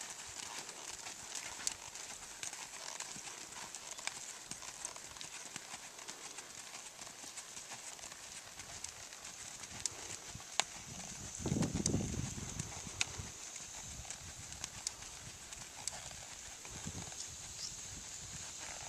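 Hoofbeats of an American Quarter Horse gelding moving slowly on arena sand, as scattered light clicks over a steady high hiss. A brief low rush of sound comes about twelve seconds in.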